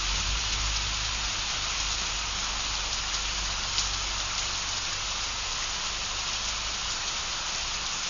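Steady rain falling, an even hiss with a few separate drops ticking through it.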